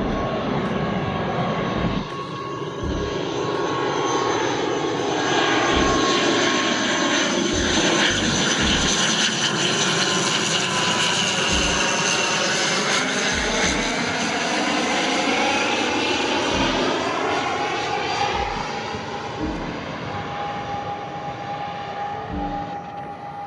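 An ATR 72-600 turboprop airliner on approach passes low and close. The drone of its two turboprop engines and six-blade propellers swells, holds for several seconds with a slowly shifting, phasing tone, then fades as it moves away. In the first couple of seconds, the tail end of a Cessna Citation Latitude business jet's climb-out.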